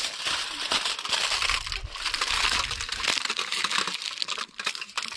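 Aluminium foil crinkling and crackling as it is folded and pressed down over the rim of a metal camp cup to cover it.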